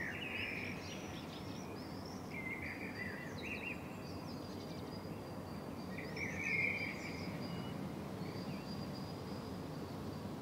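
Faint outdoor ambience: birds chirping and warbling in short scattered phrases over a steady low background noise.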